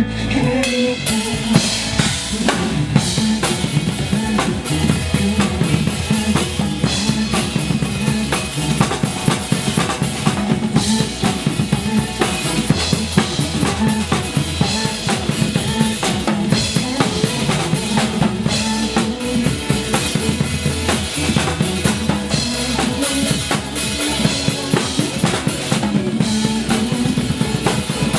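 Drum kit played live along to a pop song's backing track: a dense, busy pattern of drum and cymbal hits over the music's bass line.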